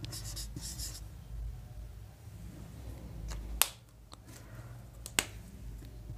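Faint marker strokes squeaking on a whiteboard, with two sharp clicks, about three and a half and five seconds in, over a low steady hum.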